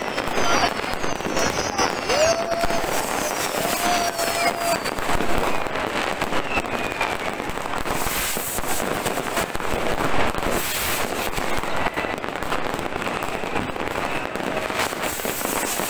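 New Year fireworks and firecrackers going off all around in a dense, continuous run of bangs and crackling. Over the first five seconds several high whistles fall in pitch.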